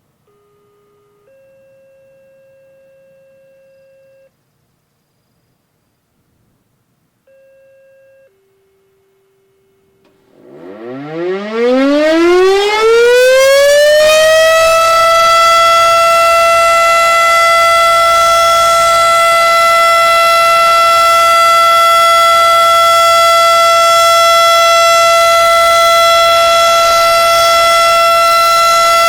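Federal Signal RSH-10A Thunderbeam electromechanical warning siren winding up, its pitch rising for about four seconds from about ten seconds in, then holding one loud, steady tone. Before it starts there are a few faint, steady electronic tones.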